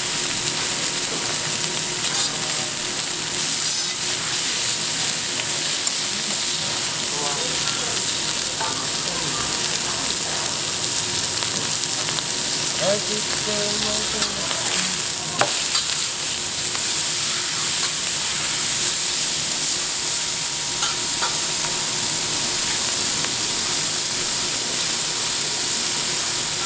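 Pork belly sizzling steadily on a large iron griddle, with occasional clicks of utensils against the metal.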